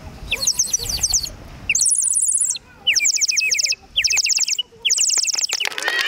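Water-filled bird whistles (clay, ceramic and plastic) blown by several children, giving rapid warbling trills in about five short bursts, each under a second long, at different pitches as the whistles take turns.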